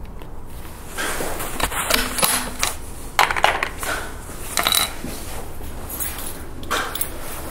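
Short, sharp metallic clicks and clinks, several spread over the seconds, the loudest about three seconds in, over a steady outdoor hiss.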